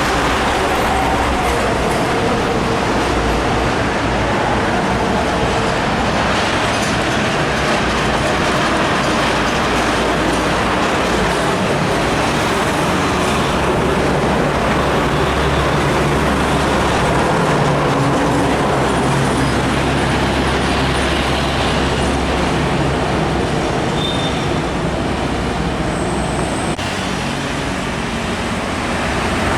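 Heavy diesel trucks and road traffic passing close by: a steady rumble of engines and tyres on the road.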